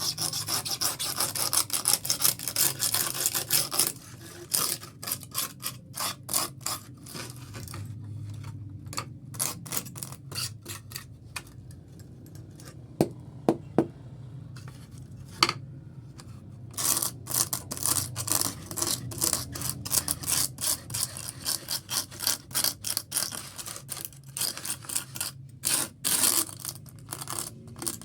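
Hand sanding of a fiberglass spoiler: rapid back-and-forth scraping strokes, steady at first, then in bursts, with a quieter pause with a few clicks about midway.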